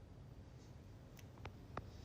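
Near silence: faint room hum, with three faint short clicks a little past the middle.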